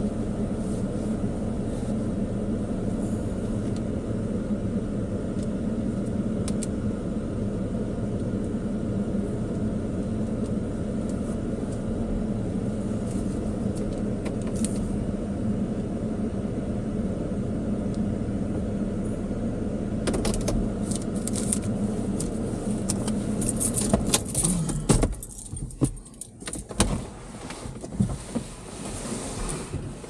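A Ford pickup's engine idling, heard from inside the cab, then switched off about 25 seconds in. From about 20 seconds on there are clicks and a jangle of keys as the driver moves about and climbs out of the cab.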